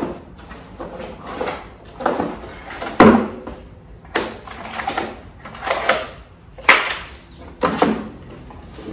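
A cardboard box is opened and frozen-solid, vacuum-sealed steaks are lifted out: a series of irregular scrapes, rustles and knocks of cardboard, plastic and hard frozen meat, the loudest about three seconds in.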